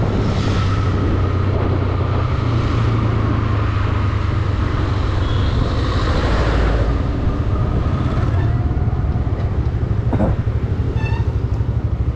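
Motorcycle engine running, with wind noise over the microphone. About 9 seconds in, the engine settles into an even pulsing beat, and a single knock sounds about 10 seconds in.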